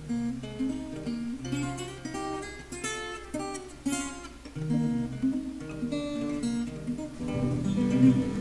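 Acoustic guitar music: a run of plucked notes with some strummed chords, growing fuller and louder about seven seconds in.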